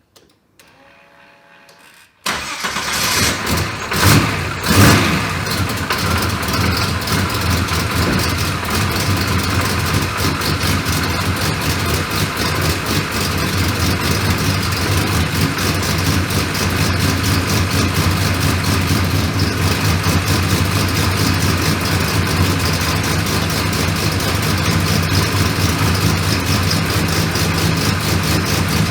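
Turbocharged Ecotec V6 cranking, then firing about two seconds in, revved twice, then settling into a steady, loud idle. It is the engine's first run after its turbo rebuild and oil top-up.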